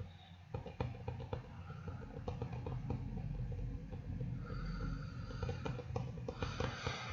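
Close-miked mouth sounds: soft lip smacks and clicks, several a second, over breathing, with short breathy hisses about halfway through and near the end.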